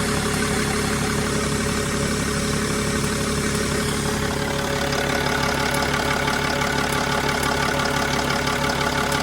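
Mercedes E320 CDI diesel engine idling, with a steady, rapid ticking over the engine note. The cause of the tick is unknown to the owner, who calls it strange.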